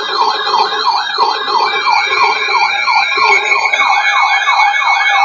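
Several emergency-vehicle sirens sounding at once, each rising and falling quickly in pitch, about three sweeps a second, overlapping at different pitches.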